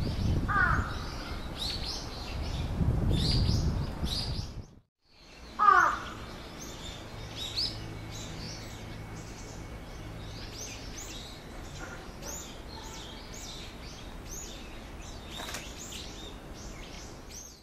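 Small birds chirping over and over, with a crow cawing twice, once about half a second in and once, louder, about six seconds in. A low rumble runs under the first few seconds, and the sound cuts out briefly just before the five-second mark.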